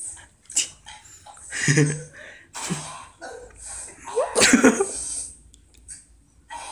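Several short, explosive bursts of coughing and spluttering, the loudest about four and a half seconds in: people reacting to the sourness of a bitten lime.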